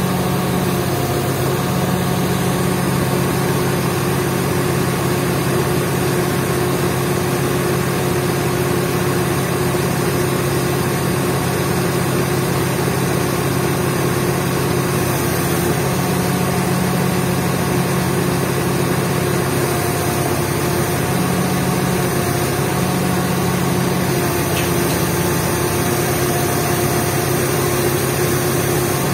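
Diesel engine of an XCMG 50-ton truck crane running steadily close by, a continuous low hum whose note shifts slightly now and then.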